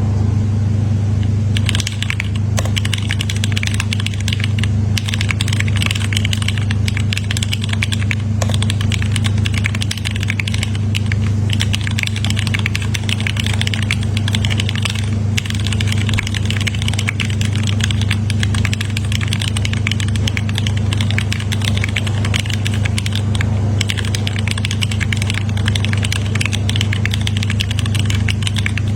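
Custom keyboard in a carbon case being typed on fast, a dense run of keystroke clacks that starts about a second and a half in and pauses briefly twice. A loud, steady low hum runs underneath.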